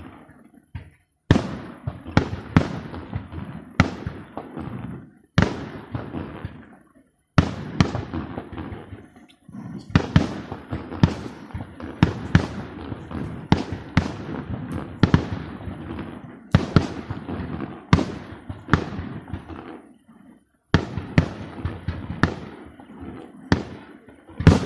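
Aerial fireworks display: a rapid, continuous series of shell bursts, sharp bangs each trailing off into a rumbling tail. There are brief lulls about a second in, around nine seconds and just before twenty-one seconds.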